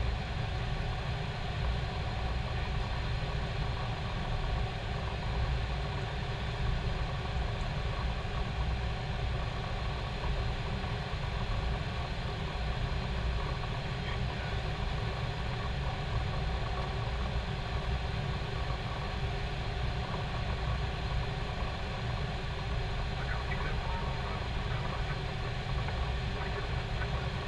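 Steady flight-deck noise of an Airbus A321 in flight on final approach: an unbroken hum and rush, strongest low down.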